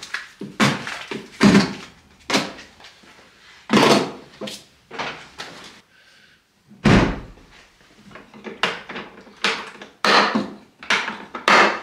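Hard plastic clunks and knocks of Milwaukee Packout toolboxes and tools being handled, set in and shut: a dozen or so irregular thumps, the heaviest and deepest about seven seconds in.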